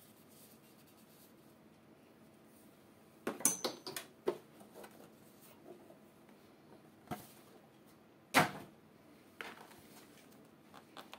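Handling noise from cardboard packaging and a small plastic air pump on a desk. After a few seconds of quiet room tone, a cluster of knocks and rustles comes about three seconds in, then a single sharper knock about eight seconds in.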